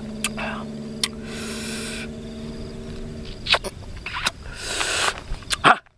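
Someone reacting to very spicy food: sharp hissing breaths drawn and blown through the lips, with lip smacks and clicks, the loudest just before the end. A low, steady hum runs beneath for the first three seconds, then stops.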